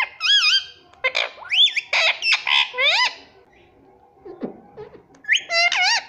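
Indian ringneck parrot calling close up. Its loud squawks swoop up and down in pitch and come in quick clusters, with a pause of a second or two past the middle before a final burst near the end.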